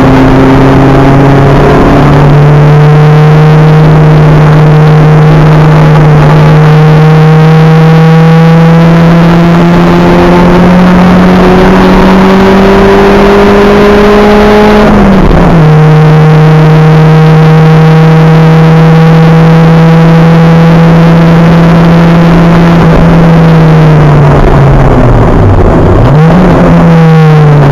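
Acura Integra race car engine heard on board, running loud under hard acceleration with its pitch climbing slowly. About halfway through it drops sharply at an upshift. Near the end the revs fall away, then a quick blip brings them back up, as on a downshift.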